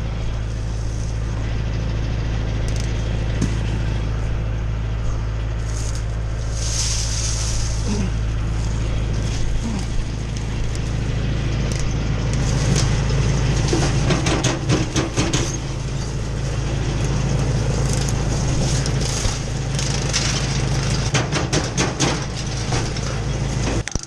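Tractor-driven Jinma 8-inch PTO wood chipper running steadily under the tractor engine's drone. In the second half it chews into branches with a run of cracking and snapping wood.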